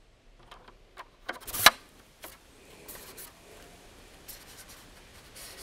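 Gear being handled by hand: a few light clicks, one loud sharp snap about a second and a half in, then soft rubbing and rustling.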